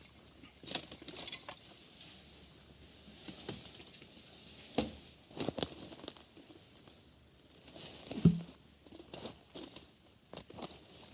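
Dry leaves and twigs rustling and crackling, with scattered snaps and one heavier thud about eight seconds in.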